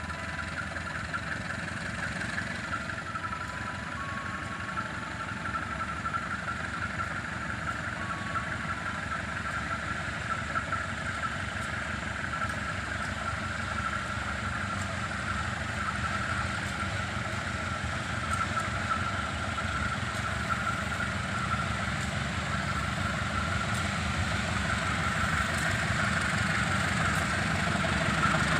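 Diesel locomotive engine running steadily with a low rumble and a whine, slowly growing louder. A few short beeps sound in the first several seconds.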